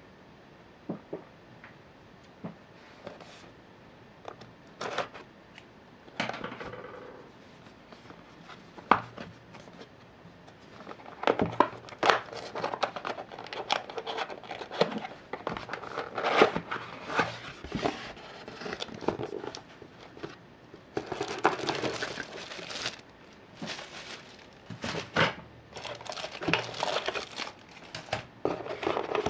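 Crinkling and rustling handling noise, broken by sharp clicks and taps, sparse at first and growing denser after about ten seconds.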